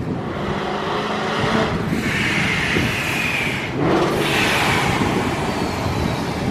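Supercharged Coyote 5.0 V8 in a Mustang running under boost with a high ProCharger whine that rises slightly, then a sudden whoosh about four seconds in as the throttle is let off and the Tial Q50 blow-off valve vents. After that the whine falls away.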